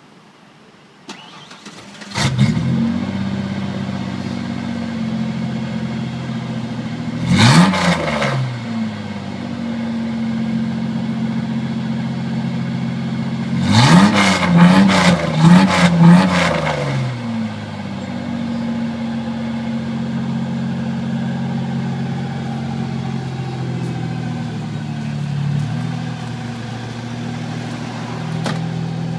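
Ford Ranger 4.0 V6 with a straight-piped exhaust starting about two seconds in and settling into a steady idle. It is revved once a quarter of the way through, then blipped several times in quick succession around the middle, and drops back to idle each time.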